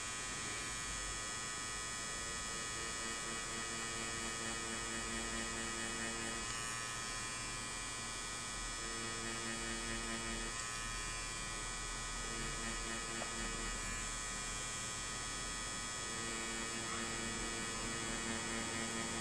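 DragonHawk Mast Archer wireless rotary tattoo pen running with a three-round liner needle while lining on practice skin, a steady electric hum. A lower hum comes and goes in several stretches.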